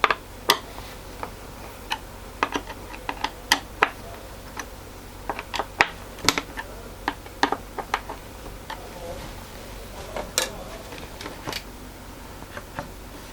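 Irregular sharp clicks and light knocks of hand work on a stool, as a skewed clip holding the top is reset.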